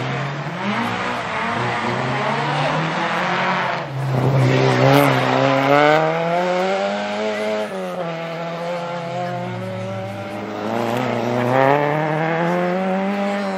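Rally car engine revving hard, its note dropping sharply about four seconds in and again near eight seconds, then climbing again, with tyre noise as the car slides.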